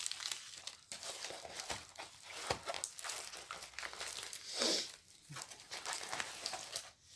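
Plastic packaging crinkling and rustling in irregular crackles as a parcel is unwrapped by hand, with a louder rustle about halfway through.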